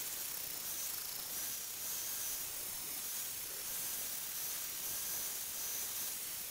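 Angle grinder with an abrasive disc grinding the blade end onto a forged steel drift: a steady, even hiss with a faint high whine.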